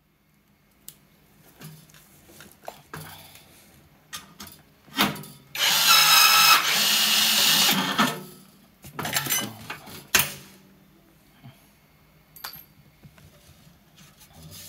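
Cordless rivet gun setting a small blind rivet in thin sheet metal: after a few handling clicks, its motor runs with a steady whine for about two and a half seconds, starting about five seconds in. A few clacks and one sharp click follow.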